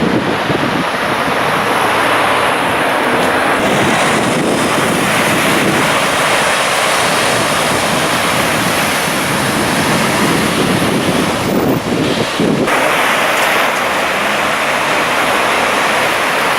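Strong wind buffeting the microphone over harbour water washing and splashing in storm-surge high water. The noise is loud and steady, with a brief lull about twelve seconds in.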